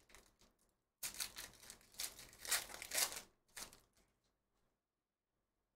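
Trading-card pack's foil wrapper being torn open and crinkled: crackling bursts from about a second in to near the four-second mark.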